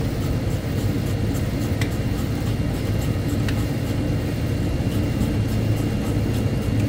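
Steady low rumble of a running rooftop exhaust fan, with a few light clicks as the belt tension on an opened belt-driven fan is adjusted by hand.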